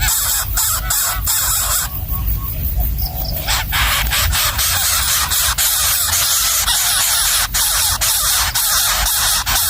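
Hungry nestling birds giving shrill begging squeals over a loud, steady hiss with crackling clicks, which drops out briefly about two seconds in.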